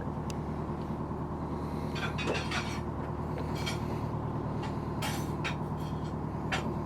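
Boat engine idling with a steady low hum, with several brief sharp sounds from the water scattered over it.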